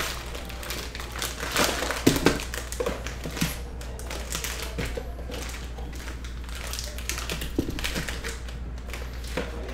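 Foil wrappers of 2022 Panini Score Football card packs crinkling as the packs are pulled out of their cardboard hobby box and handled, in irregular rustles and taps over a steady low hum.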